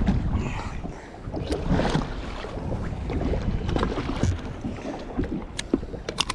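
Wind buffeting the microphone on a small boat at sea, with water moving against the hull and a few light knocks from gear being handled.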